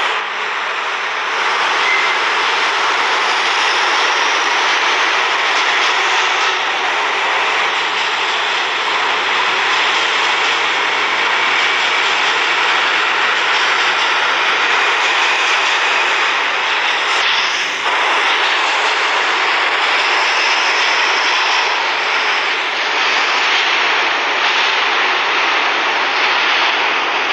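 A loud, steady rushing noise with no clear pitch or rhythm, cutting in abruptly and holding even throughout, with a brief dip about eighteen seconds in.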